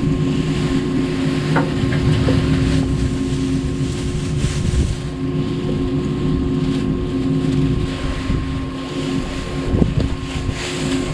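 An engine running steadily at idle, with wind on the microphone and the rustling and scraping of dusty corn shucks being pulled out of a round baler by hand.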